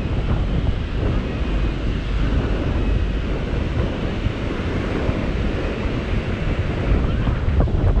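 Ocean surf breaking and washing up the shore in a steady rush, with wind buffeting the microphone in a low rumble.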